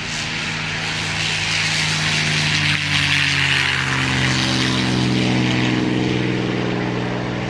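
P-51D Mustang's Packard Merlin V12 engine and propeller at full power on the takeoff run. It swells as the fighter passes, with a slight drop in pitch, then eases as it lifts off and pulls away.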